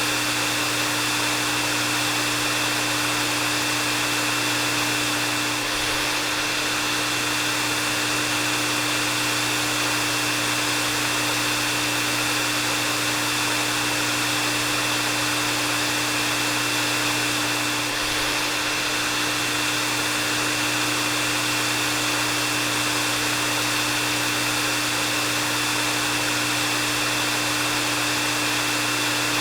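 Hair dryer running steadily: a constant rush of blown air, with a steady high whine and a lower motor hum underneath.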